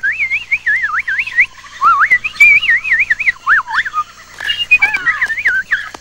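A fast warbling whistle, its pitch swooping up and down between high and middle notes almost without a break, with a short pause about four seconds in before a softer run.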